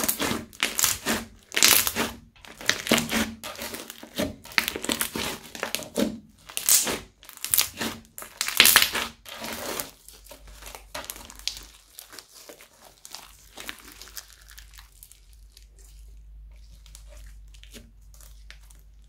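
Crunchy slime studded with foam beads being squeezed and kneaded by hand, giving dense crackling and crunching. After about ten seconds the crackles thin out and grow quieter as the slime is stretched and laid down.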